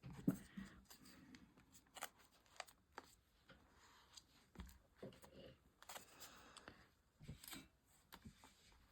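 Faint handling of paper cut-outs on a craft desk: scattered soft rustles and light taps.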